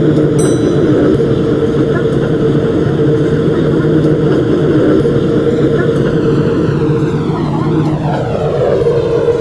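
MTR M-Train electric multiple unit running at speed: a steady hum from the traction motors over the rumble of wheels on rail. About eight seconds in, a brief sweeping change in tone passes through the sound.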